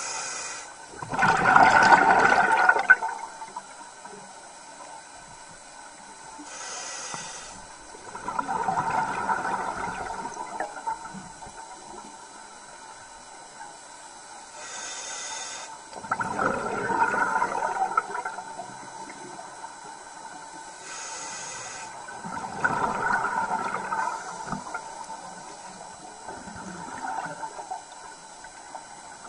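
Scuba diver breathing underwater through a regulator. Each breath gives a short hiss on the inhale, then a longer, louder burst of exhaled bubbles, repeating about every seven seconds.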